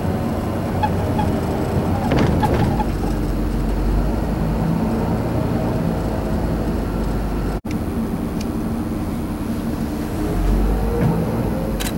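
A tour bus driving through city streets, its engine and road noise heard from inside the cabin, with a deeper rumble swelling twice.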